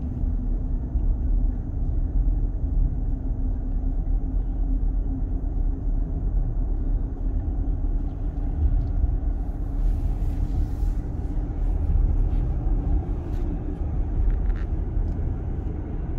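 A car's engine and tyres heard from inside the cabin while driving on a wet road: a steady low rumble with a faint hum, and a brief rise of hiss about two-thirds of the way in.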